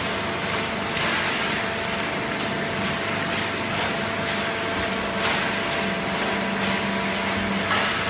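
Horizontal hydraulic waste-paper baler and its chain conveyor running: a steady mechanical drone with a few constant hum tones, broken every second or two by brief rattles of the conveyor and the paper it carries.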